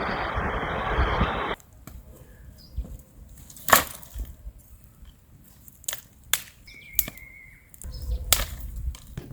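Wood being snapped or split for a cooking fire: a handful of separate sharp cracks, the loudest about four seconds in. A steady rushing noise fills the first second and a half and cuts off suddenly.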